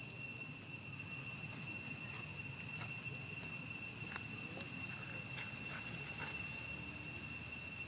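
Steady, high-pitched insect drone holding one unwavering tone, over a low background rumble. A few faint, short ticks or chirps come in the middle.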